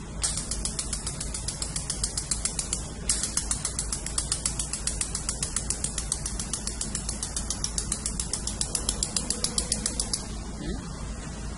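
Pulsed laser welder firing a rapid, even train of sharp ticks, one for each laser pulse striking the metal as it welds a seam. The pulses break off briefly about three seconds in, resume, and stop about ten seconds in, over the machine's steady low hum.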